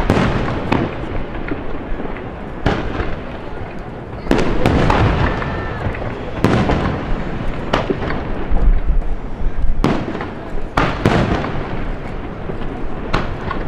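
Aerial firework shells bursting one after another, a sharp boom every second or two, with echoing rumble and crackle between the bursts.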